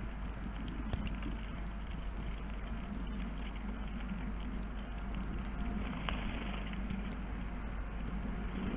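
Steady background noise with a constant low hum and scattered faint ticks and taps.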